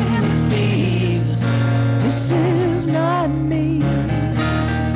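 Live band playing a song, with held bass notes under a wavering melody line that bends up and down in pitch about three seconds in.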